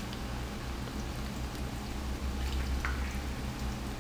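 Plantain slices frying in hot oil in a pan: a steady sizzle with small crackles and one sharper pop near three seconds in.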